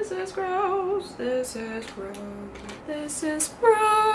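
A woman singing with music: a held, wavering note, then a run of shorter, lower notes, and a loud long note near the end.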